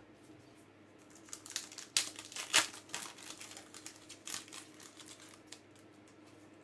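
Foil trading-card pack wrapper crinkling as it is torn open and handled by hand: a run of sharp crackles, loudest about two to two and a half seconds in, fading out after about five seconds.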